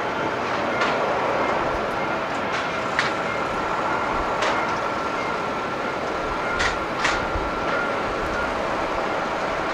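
Rolls-Royce Trent XWB jet engines of a JAL Airbus A350-900 running as the airliner rolls along the runway: a steady rush with a faint steady whine. A few short sharp clicks come through it, about five in all.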